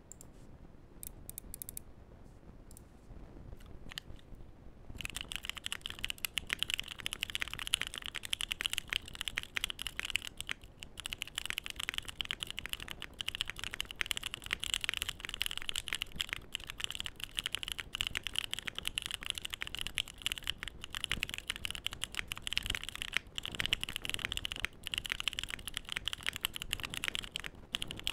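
Typing on a Bakeneko 60% mechanical keyboard with stock Durock Light Tactile switches, a polycarbonate plate and ABS keycaps. A few separate keystrokes come first, then about five seconds in a fast, continuous clatter of keys begins. The owner hears a slight crunchiness that he puts down to the switches' unlubricated tactile leaves.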